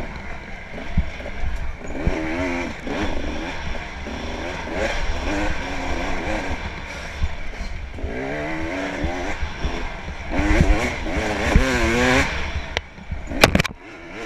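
Dirt bike engine revving up and down again and again as the bike is ridden over rough, rutted trail, under a steady rumble of wind on the helmet camera. A few sharp knocks come near the end.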